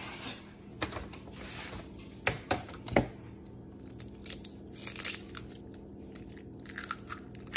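Eggs being cracked into a plastic bowl: several sharp taps of shell on the rim, the loudest about three seconds in, followed by small crackling of shells being pulled apart.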